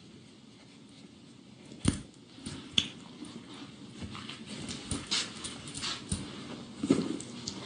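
A woman sniffling repeatedly in short breathy bursts, with two sharp knocks about two and three seconds in.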